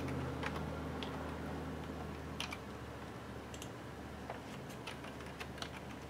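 Computer keyboard and mouse clicking: about a dozen faint, irregularly spaced clicks as dimension values are entered. A low hum underneath fades out during the first two seconds.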